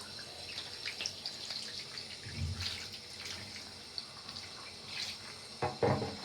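Tap water running and splashing lightly as a kitten is rinsed off in a bath, with small drips and splashes throughout and a brief louder sound near the end.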